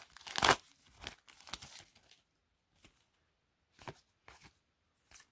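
A trading card pack's wrapper being torn open and crinkled. There is a loud rip about half a second in and smaller crinkles over the next second and a half, then a few faint clicks of handling.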